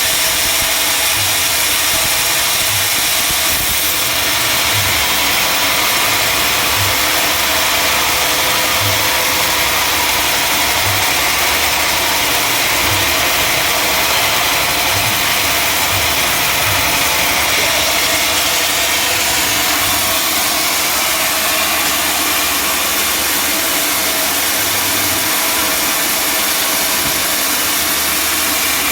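Sawmill machinery running steadily: a loud, even engine-driven drone with hiss that does not let up.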